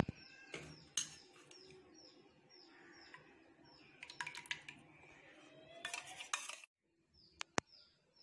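Light metallic clinks and knocks of an aluminium kadai and a steel tumbler as ghee is poured into the pan of oil. Behind them, a small bird chirps about three times a second.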